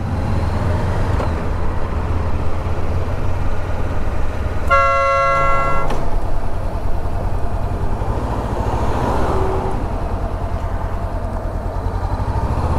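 A vehicle horn honks once, about five seconds in, a single steady tone held for about a second. Under it runs the steady low drone of riding the Honda CB500X, its parallel-twin engine mixed with road and wind noise.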